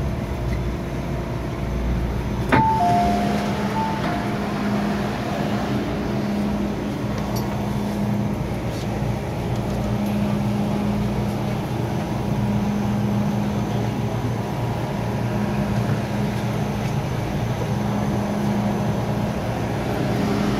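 Inside an MTR M-Train electric multiple unit as it runs: a steady rumble with a hum that swells and fades every couple of seconds. About two and a half seconds in there is a sharp knock, then a short two-note falling chime.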